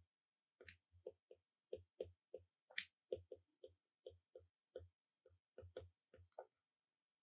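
Stylus tip tapping and clicking on an iPad's glass screen during handwriting: a quiet, irregular run of short taps, about three a second, which stop near the end.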